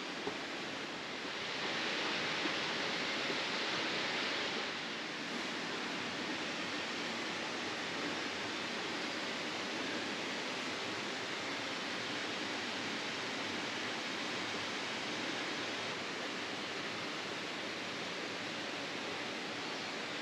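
Steady outdoor rushing noise with no distinct events, swelling louder and brighter for a few seconds near the start before settling back.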